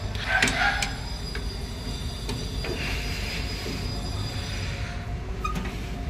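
Hex key turning the brass service valve stem of an LG VRF outdoor unit to open it fully, making a few light metallic clicks over a steady low hum. A faint hiss comes for a second or two in the middle.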